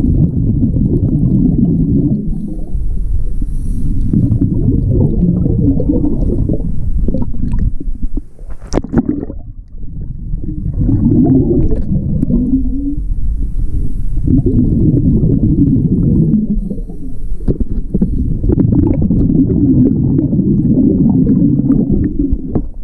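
Scuba regulator exhaust heard underwater: a diver's exhaled breath bubbling out in long, low gurgling rushes, about five of them with short pauses between. A few sharp clicks come in the pause about eight to nine seconds in.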